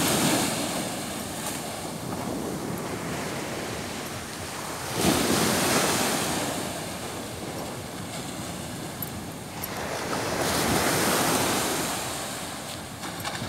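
Rough sea surf breaking on a sandy shore. The noise swells in waves, with one sudden surge about five seconds in and another rise around ten seconds. Wind buffets the microphone.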